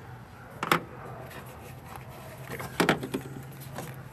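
Metal clinks of a ratchet and 10 mm socket working the hold-down bolt of an ignition coil pack on an engine: one sharp clink about a second in, then a louder clink followed by a few lighter ticks near three seconds. A faint steady low hum runs underneath.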